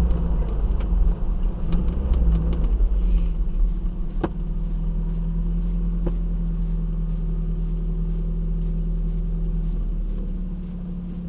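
Turbocharged Toyota Hilux engine running at steady revs with a deep rumble, with two sharp clicks about four and six seconds in.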